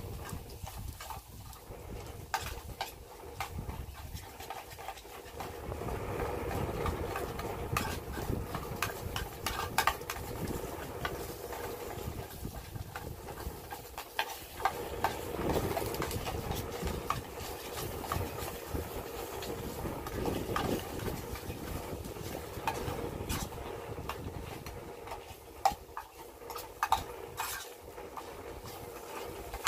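Spam sizzling in a canteen cup over an alcohol stove, with scattered small pops and crackles, over a low uneven rumble.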